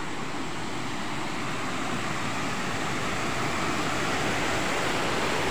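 Steady rush of river water pouring over a small concrete weir, growing slightly louder toward the end.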